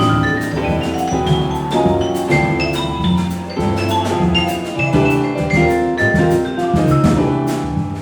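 Jazz combo playing live: quick vibraphone runs over bass and drums, with cymbals.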